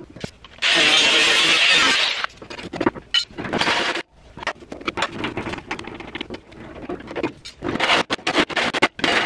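Drill driving a 4-inch hole saw into a truck's sheet-metal radiator core support, cutting in short bursts with metal grinding and chatter. The longest burst starts just under a second in and lasts about a second and a half; shorter bursts follow near the middle and near the end.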